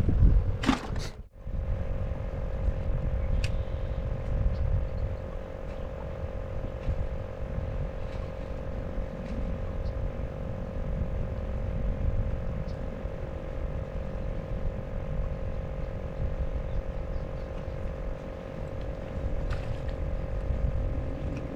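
A steady, constant mechanical hum over a low rumble, after a brief break in the sound about a second in.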